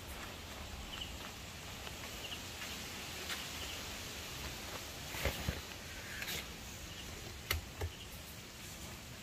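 Quiet night-time outdoor background with faint high chirps now and then, and a few short soft knocks and rustles around the middle as the monkeys shift about inside the nylon tent.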